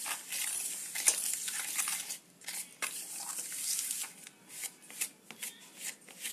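A metal spoon stirring coarsely ground Oreo biscuit crumbs and butter in a stainless steel bowl: continuous gritty scraping and rustling with irregular clicks of the spoon against the bowl.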